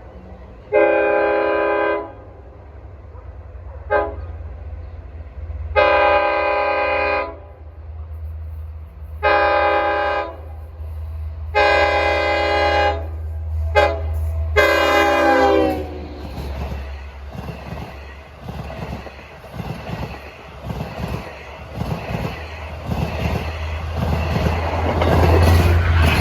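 Long Island Rail Road diesel train's multi-chime air horn blowing two grade-crossing sequences (long, long, short, long) as it approaches, the last blast dropping in pitch as it goes by. The train then runs past, with a low diesel rumble and the wheels clacking over the rail joints, growing louder near the end.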